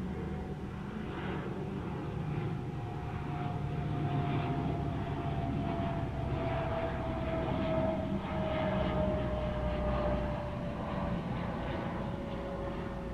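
De Havilland Dash 8 twin-turboprop airliner flying past: a steady propeller drone whose main tone slowly falls in pitch as it passes, loudest about eight to nine seconds in.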